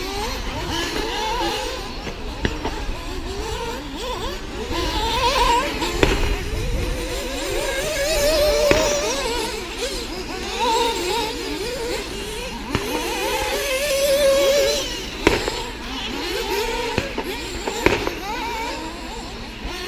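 Several radio-controlled off-road model racing cars running on the track, their motors whining up and down in pitch as they accelerate and brake, with a few sharp knocks.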